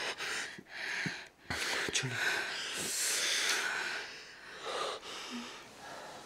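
Heavy breathing and breathy gasps during sex, coming about once a second and strongest about halfway through.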